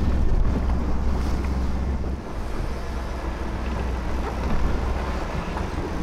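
Wind buffeting the microphone: a steady low rumble under an even rushing hiss, dipping briefly a little after two seconds in.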